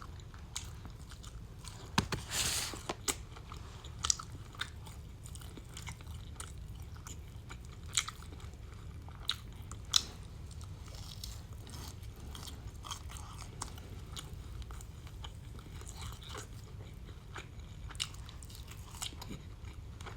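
A person chewing a mouthful of gummy steak close to the microphone, with mouth smacking and scattered sharp clicks, the loudest about two seconds in.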